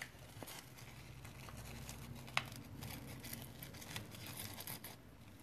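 Faint crinkling and light clicks of tinsel trim and a paper gift tag being handled as the trim is threaded through the tag, with one sharper click about two and a half seconds in.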